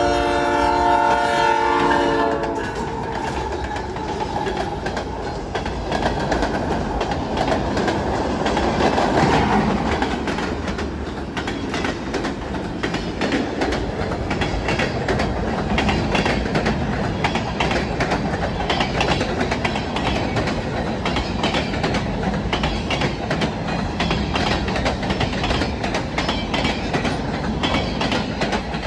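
Diesel freight locomotive's horn sounding a chord of several notes, cutting off about two and a half seconds in. Then the locomotives and a long line of freight cars pass close by, with a steady rolling rumble and rhythmic clickety-clack of the wheels on the rails.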